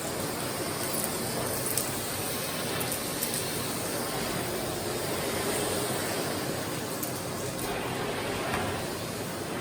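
Philips PowerPro FC9352/01 compact bagless vacuum cleaner running with a steady rushing hiss of motor and suction, with a few light clicks from the nozzle.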